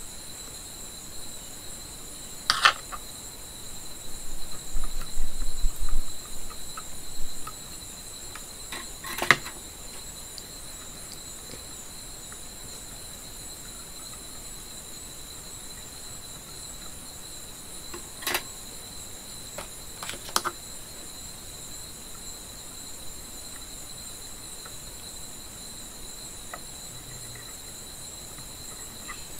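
A steady high-pitched whine, with a few sharp clicks and a stretch of clatter from small hand tools working on wiring.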